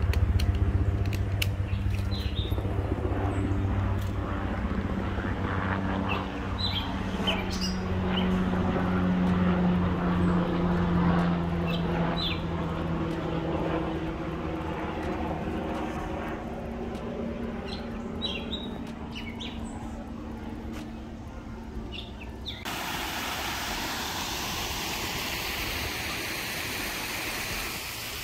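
Outdoor ambience: birds chirping over a steady low engine hum. About three quarters of the way through it changes suddenly to an even rushing noise.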